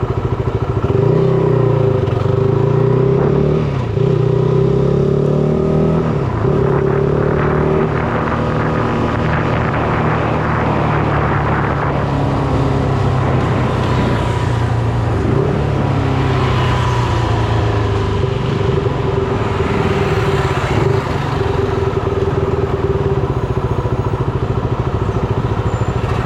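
Shineray SBM 250S motorcycle engine running on the move, its pitch rising and falling several times in the first few seconds as it revs through the gears, then holding steadier, with wind and road noise.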